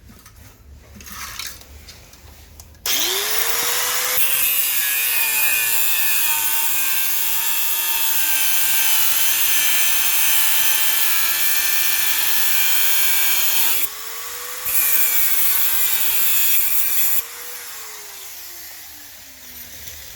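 Electric angle grinder spinning up and grinding steel, cutting away a rusted, snapped-off muffler bolt. It runs for about eleven seconds, stops briefly, grinds again for a couple of seconds, then winds down with falling pitch.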